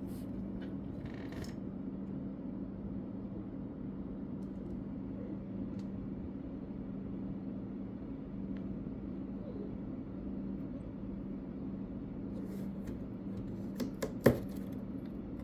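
Steady low hum with a few faint scattered ticks, then a small cluster of light clicks and one sharp click near the end.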